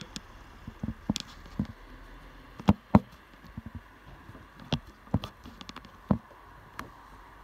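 A run of irregular sharp knocks and taps, the loudest two close together about three seconds in, over a faint steady background.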